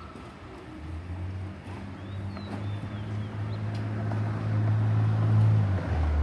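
A motor vehicle's engine running with a low, steady hum that grows louder over several seconds as it draws near, then drops in pitch near the end.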